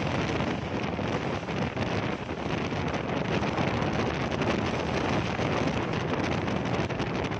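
Steady rush of wind on the microphone over the running noise of a passenger train at speed, heard from an open door of the moving train.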